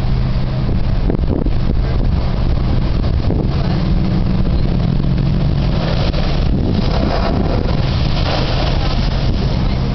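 Ocean surf breaking on a lava shelf, with wind rumbling on the microphone; from about seven seconds in, a louder hissing rush as the Spouting Horn blowhole blasts up spray.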